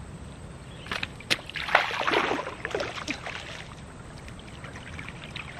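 Splashing in shallow river water as a freshly caught snakehead is handled at the water's edge. A couple of sharp clicks come about a second in, then a burst of splashing and sloshing lasts about a second and a half.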